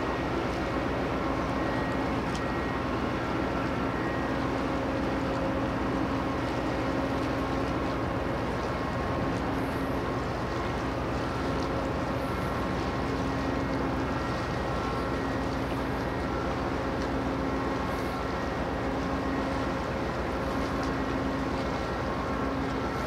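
Container RoRo ship under way, its engines giving a steady drone with a faint hum, over a hiss of wind and water.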